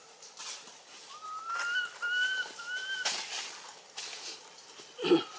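Animal calls: three short, high, whistle-like notes, each rising slightly, about a second apart, then a louder, lower call near the end.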